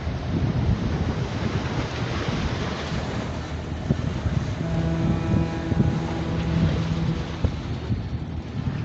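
Wind buffeting the microphone over the wash of choppy harbour water. About halfway through, a steady low pitched tone with overtones sounds for roughly three seconds.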